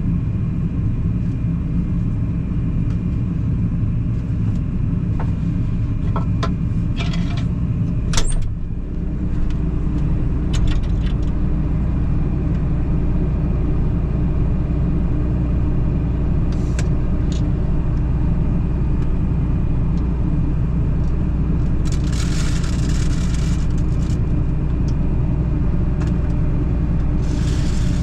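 Combine harvester running steadily, a continuous low drone. A few clicks come a few seconds in, then a knock at about eight seconds, after which the hum settles into a steadier tone. Two brief bursts of hiss come near the end.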